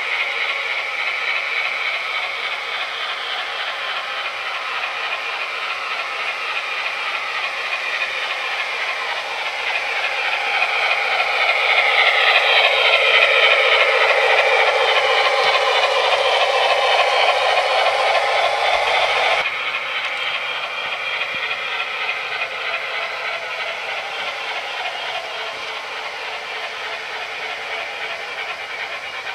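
Three-rail O gauge model freight train rolling over garden track, its metal wheels clattering over the rails and rail joints. The clatter grows louder as the cars pass close by, drops suddenly about two-thirds of the way through, then fades as the train runs farther off.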